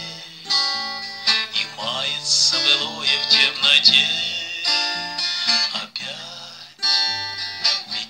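Cort acoustic guitar strummed and picked in a slow song accompaniment, with a man's voice singing along.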